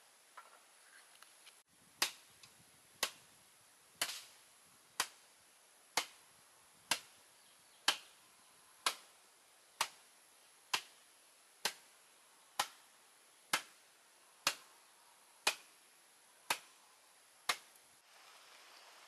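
Long wooden pole brought down on a heap of chopped wood chips on a concrete floor, pounding the chips: about seventeen sharp thwacks, roughly one a second. The strikes stop near the end and give way to outdoor background noise.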